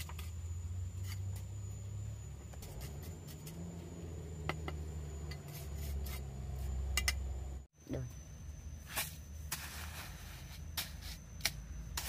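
Scattered small knocks and scrapes of rocks and a trowel being worked into loose soil. After a sudden break about two-thirds in, longer scraping strokes and a few sharp clicks.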